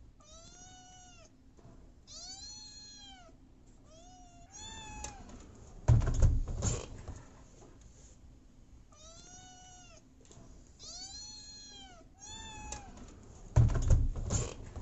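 Domestic cat meowing insistently: three drawn-out meows that rise and fall, followed by a few loud knocking thumps. The whole sequence happens twice.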